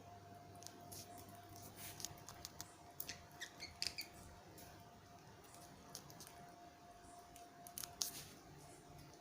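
Budgerigar grinding its beak: soft, irregular clicking and scraping, busiest a few seconds in, with a sharper click near the end. Beak grinding is the sign of a relaxed, drowsy bird settling to sleep.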